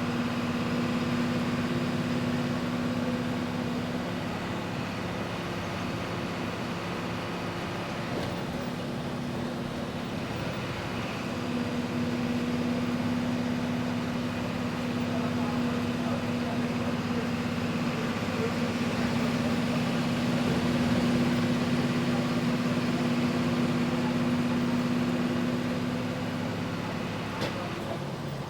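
Volkswagen 17.230 EOD bus diesel engine running at high revs with a steady drone. It eases off for several seconds about four seconds in, then climbs back and holds before dropping near the end.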